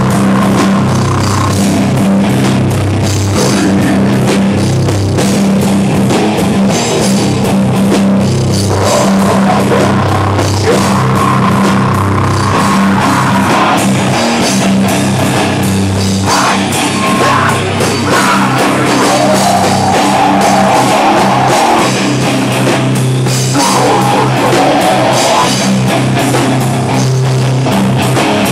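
Heavy metal band playing loud: electric bass, distorted guitar and drum kit chugging through a breakdown, with long held low bass notes.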